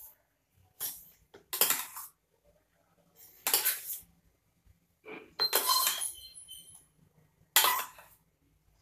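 A metal spoon scraping and clinking against a steel bowl while whipped cream is scooped out, in about five short bouts. One bout, about five seconds in, leaves a brief metallic ring.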